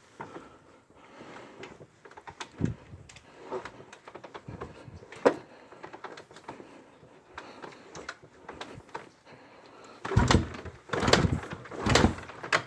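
2000 Honda XR400's single-cylinder engine being kicked over without starting: clicks and knocks of the kick-start, then three heavy kicks near the end, and the engine does not fire.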